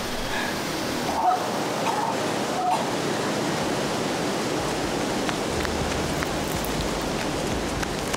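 Steady rush of a woodland stream's running water, with a few faint short tones between one and three seconds in and a low hum coming in over the last few seconds.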